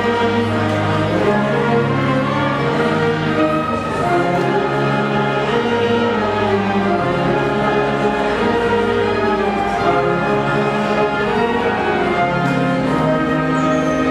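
Student concert band of woodwinds, brass and percussion playing, with full chords held a second or two at a time.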